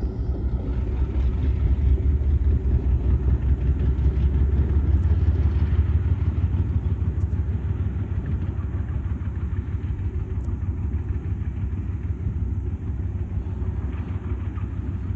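Diesel locomotive running light engine, its low engine rumble slowly fading as it moves away.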